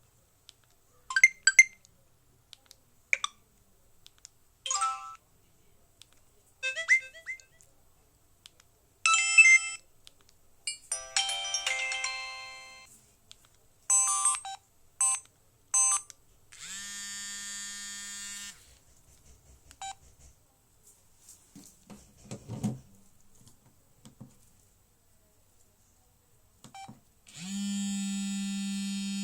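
Samsung SGH-E900 mobile phone's built-in short alert tones playing one after another: brief electronic chimes and jingles with short gaps between them. After them, a steady buzz of about two seconds, and near the end a second, louder one: the phone's vibration alert.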